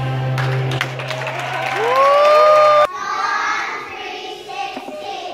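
A group of young children singing along to a recorded backing track, their voices sliding up into a long held final note. The music cuts off suddenly about three seconds in, followed by a mix of children's voices and cheering.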